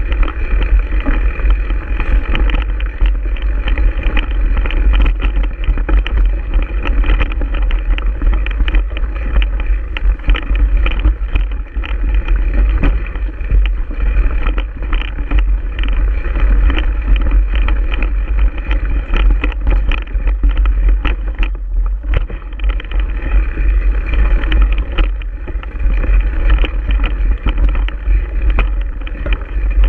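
Giant Stance 1 mountain bike ridden fast over a rooty, rocky dirt trail, heard from a camera mounted on the bike: constant wind rumble on the microphone with dense, irregular rattles and knocks as the front wheel and Fox fork take the bumps.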